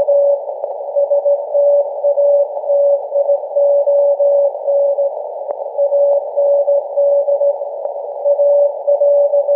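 Morse code from SAQ Grimeton's Alexanderson alternator on 17.2 kHz VLF, received on a software-defined radio with a miniwhip antenna: a steady whistle-like tone keyed on and off in dots and dashes over narrow-band receiver hiss. There is a longer pause about halfway through, and a couple of faint static clicks.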